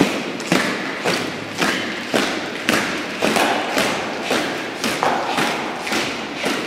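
Boots of a file of honour guards marching in step on a stone church floor: a sharp heel strike about every half second, each with a hall echo.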